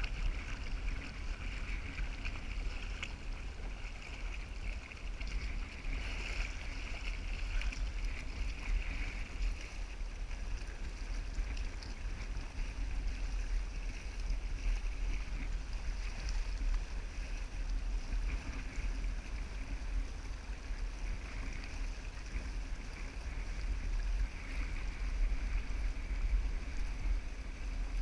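Water rushing and splashing along the hull of a Hobie Mirage Outback sailing kayak under way, with a steady low rumble of wind buffeting the microphone.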